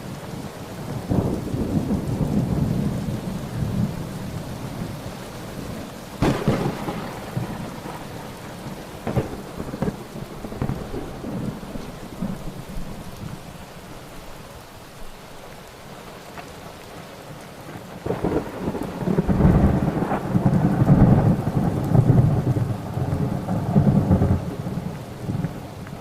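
Thunderstorm: steady rain with rolling thunder. A sharp crack comes about six seconds in, and the longest, loudest rumble fills the last third.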